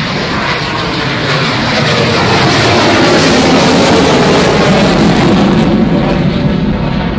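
F/A-18 Hornet's twin jet engines as the fighter climbs steeply away, a loud rushing jet noise that swells to its peak midway and starts to fade near the end.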